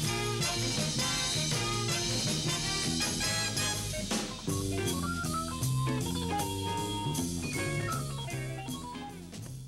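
Jazzy band music with a drum kit keeping a steady beat, fading out near the end.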